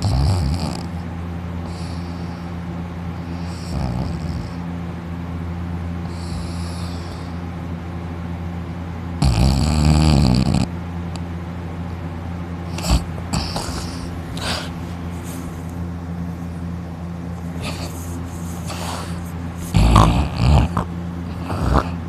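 A person asleep with mouth open, snoring: a long, heavy snore about nine seconds in and another near the end, with softer breaths between, over a steady low hum.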